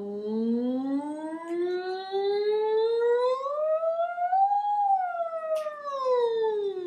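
A woman's singing voice doing a vocal siren on "sung": one unbroken glide from low in her range up to a peak about four and a half seconds in, then sliding back down. It is a warm-up exercise to extend the range and smooth over the breaks between chest, mixed and head voice.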